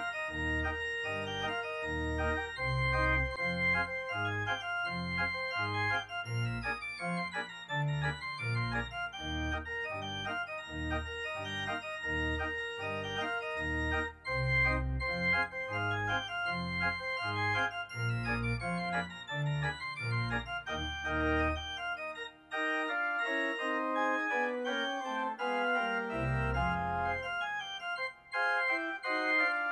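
Organ music: held chords over a moving bass line. The bass drops out about two-thirds of the way through, leaving the upper chords, and comes back briefly near the end.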